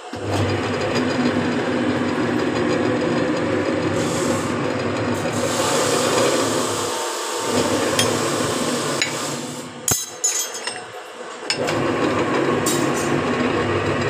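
Motor-driven scroll bending machine running, its rotating table grinding the square steel bar round the die as it curls it into a scroll. The running drops out briefly about seven seconds in, then stops for a couple of seconds near ten seconds with a few sharp metal clanks before starting up again.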